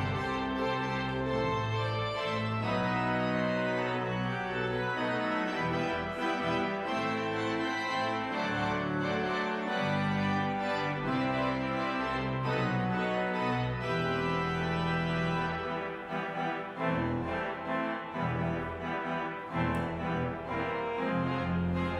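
Organ music: a church organ playing sustained chords that shift every second or so, growing more detached in the last few seconds.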